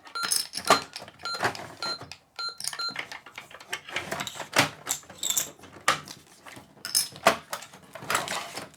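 Toy cash register keypad giving about five short electronic beeps as its buttons are pressed in the first three seconds, among plastic clicks and rattles. Sharp plastic clicks and clatter of the toy's parts being handled follow.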